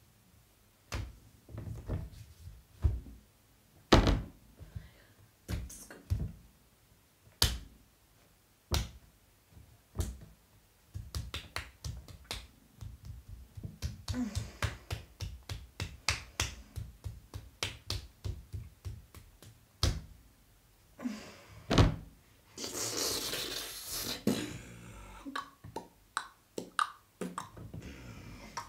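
Percussion made by a person with mouth and hands: a string of sharp knocks, taps and clicks, turning into a fast, even run of strikes in the middle, with a hissing burst about three quarters of the way through.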